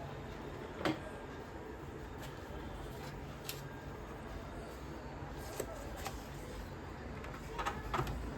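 A few light clicks and taps from handling parts on a workbench, over a steady low background hum: one sharper click about a second in and a small cluster near the end.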